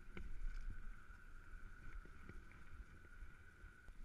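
Specialized Stumpjumper mountain bike riding fast down a gravel trail: tyre rumble and scattered knocks and rattles over bumps, with a steady high whir.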